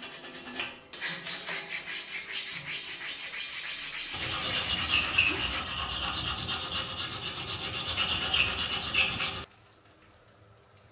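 Hand filing and sanding of bare steel bicycle-frame parts: quick, repeated back-and-forth scraping strokes. About four seconds in the strokes change to a file working a small steel braze-on tab. The sound stops abruptly shortly before the end.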